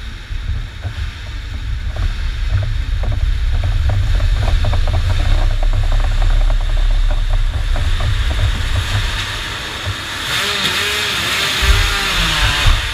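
Kart engines running in the distance under a heavy, uneven wind rumble on the microphone; about ten seconds in an engine revs up and down.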